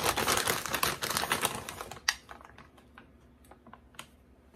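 Plastic bag of shredded cheddar crinkling and rustling as it is handled, then, about two seconds in, one sharper tick followed by sparse faint ticks as cheese is scattered by hand into an aluminum foil pan.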